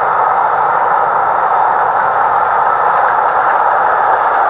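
Southern Railway Merchant Navy Class 4-6-2 steam locomotive 35018 'British India Line' and its train running at speed across a viaduct, heard as a loud, steady rushing noise with no separate exhaust beats.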